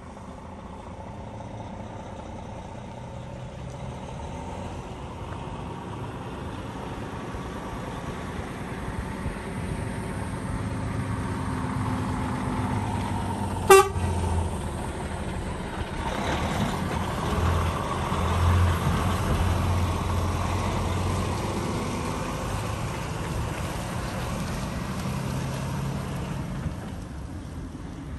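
DAF XG+ truck's diesel engine running as it pulls closer. One short horn toot comes about halfway through, then the truck drives past and pulls away, and its engine sound fades.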